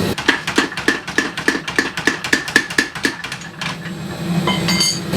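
Vintage 25 kg Sakamoto belt-driven power hammer pounding hot steel in a fast, steady rhythm of about five blows a second, stopping about three and a half seconds in. A few ringing metal clinks follow near the end.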